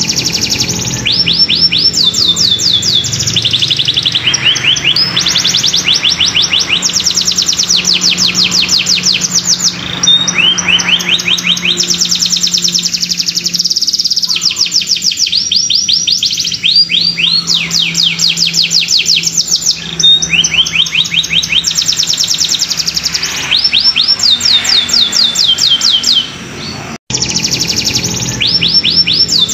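Domestic canary in full song: long, fast rolling trills of rapidly repeated falling notes, run after run with only short pauses. This is the kind of song used as a lure to coax other canaries into singing. The song cuts out briefly near the end.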